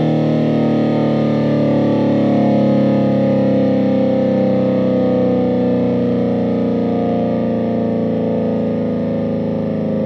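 Federal Signal SD-10 outdoor warning siren sounding loudly, its tone slowly falling in pitch.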